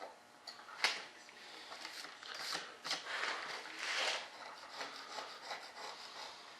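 Scraping and rubbing handling noises with a few sharp clicks, like a freshly moulded resin part being worked and cleaned up by hand.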